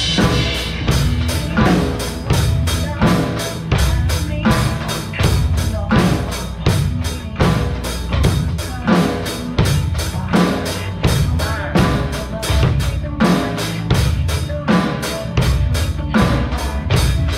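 Acoustic drum kit played to a steady beat, with kick and snare strokes, along with a pop song backing track.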